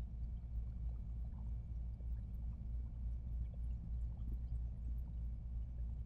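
Steady low room hum, with faint short squeaks of a dry-erase marker writing on a whiteboard.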